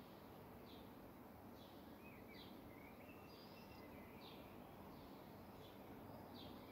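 Faint bird chirps, short high calls and little pitch glides about once or twice a second, over a steady hiss of outdoor background noise.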